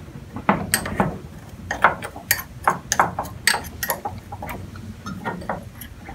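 Metal spoon pressing and tapping against a small glass bowl as it crushes a chicken stock cube: a run of irregular sharp clinks, several a second.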